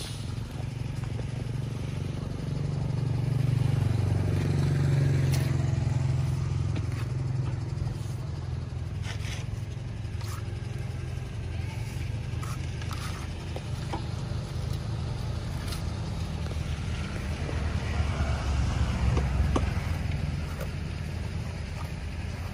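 Low motor-vehicle rumble that swells a few seconds in and again near the end. Over it, scattered light scrapes and taps of a steel plastering trowel working wet cement render along the base of a brick wall.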